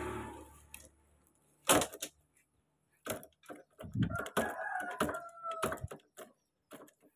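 A rooster crowing once, a call of about a second and a half, over scattered light clicks and knocks; a single sharp knock near two seconds in is the loudest sound.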